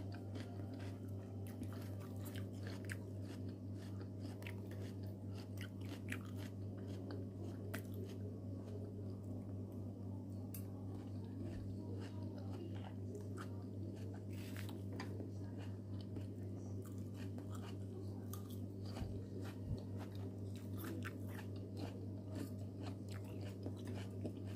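A person chewing and crunching food close to the microphone, many small crisp crunches and clicks scattered irregularly, over a steady low hum.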